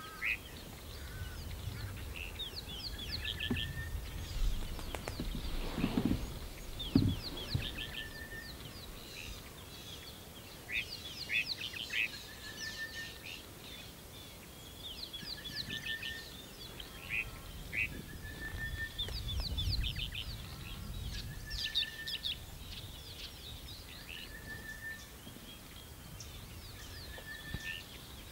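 Birds calling: a short whistled note repeating about every two seconds, with bursts of quick chirps over it, above a low rumble of wind or background noise and a couple of soft knocks.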